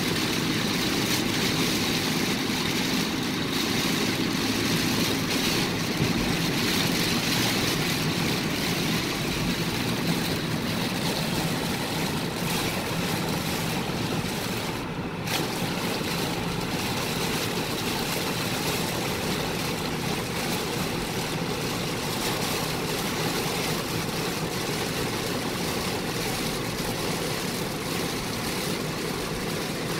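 Heavy rain hitting a car's roof and windshield, heard from inside the cabin, mixed with tyre and road noise at highway speed: a steady, loud hiss. It lets up for a moment about halfway through as the car passes under an overpass.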